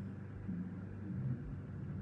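A puppy snoring in its sleep: a low snore that comes and goes with its breathing.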